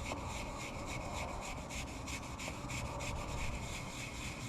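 Brass wire brush scrubbing the bare machined metal of an old lathe wet with an acetone and transmission-fluid stain remover, in quick, even back-and-forth strokes to lift rust stains.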